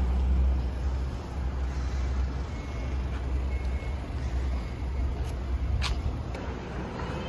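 Car driving slowly, a steady low rumble of engine and road that gradually dies down, with two short clicks in the latter half.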